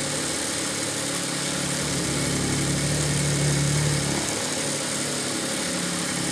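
Industrial sewing machine running steadily, stitching a crochet border through a thick rug base. It is a constant motor hum that grows a little louder just past the middle and eases slightly after about four seconds.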